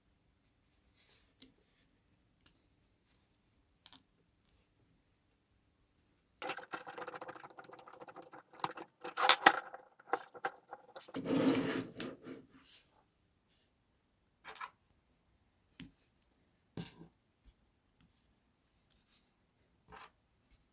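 Scattered clicks and rattles of small hard objects being handled, with a dense run of rapid clicking and rattling about six seconds in, followed by a shorter, duller scraping burst.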